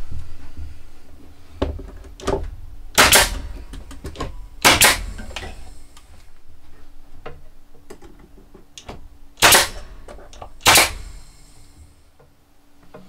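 Sharp knocks from work on wooden cupboards: two loud strikes about three and five seconds in and two more near the end, with lighter taps and clicks between.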